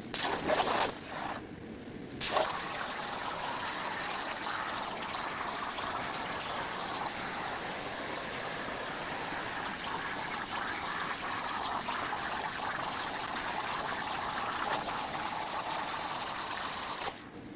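CNC plasma table's torch cutting quarter-inch steel plate with an 80-amp tip: a steady, loud hiss with a faint high whine. It starts after a few brief stops and starts in the first two seconds and cuts off near the end.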